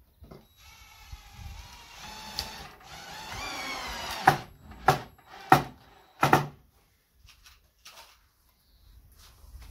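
Cordless drill driving a screw into a wooden tabletop: the motor whines for a few seconds and rises in pitch, then four short, loud bursts follow as the screw is driven home.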